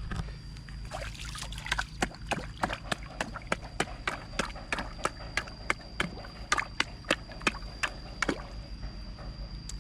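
Quick irregular plops and little splashes at the water surface as fish rise to take food thrown in, roughly two to four a second, over a thin steady high-pitched tone.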